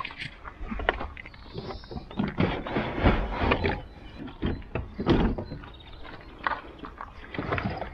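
Plastic clicks, knocks and scrapes as a Thetford cassette toilet tank is unlatched and slid out of its hatch in a caravan's side and set down on gravel. The handling is loudest about three and five seconds in.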